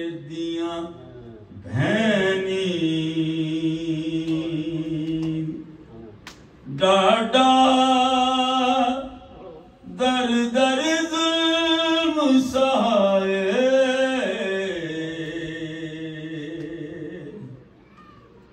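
A single unaccompanied voice chanting a mourning lament (noha) in long, held, wavering notes: three drawn-out phrases with short breaths between them, the last one trailing off near the end.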